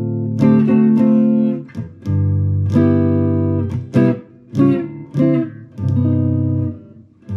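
Electric guitar (a Fender Stratocaster) played through a Fender Mustang GTX100 modelling amp: ringing chords and notes left to sustain, with a few short, chopped chords about four to five seconds in.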